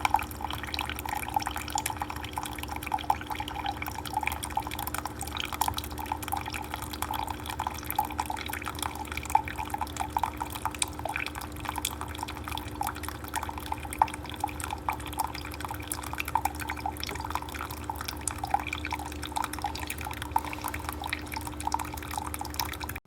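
Keurig K-Supreme single-serve coffee maker brewing: a steady machine hum under coffee streaming and dripping into a cup, with many small irregular splashes.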